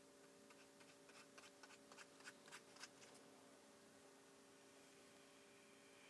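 Near silence: faint steady room hum, with a run of light ticks over about the first half that stop about three seconds in.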